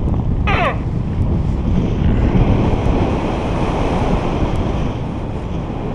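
Airflow buffeting the microphone in flight under a paraglider, a steady low rumble. About half a second in, a laser tag rifle gives one short electronic shot sound, a quick falling pew.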